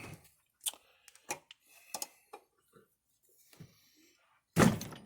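Light metal clicks and taps of a wrench on a Bosch diesel injector clamped in a bench vise, then one loud metal whack about four and a half seconds in as he strikes the wrench to break the tight nozzle nut loose.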